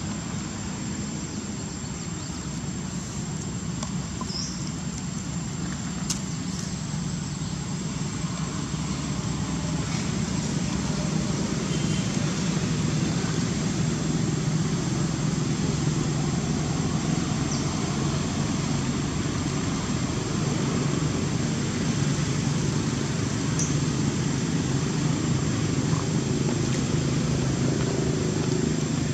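Steady low rumble of outdoor background noise, growing a little louder partway through, with a faint steady high whine and a few small ticks.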